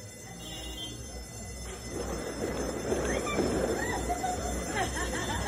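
Crowd voices in the street, chattering and calling out, getting louder about two seconds in, with no firecracker bangs yet.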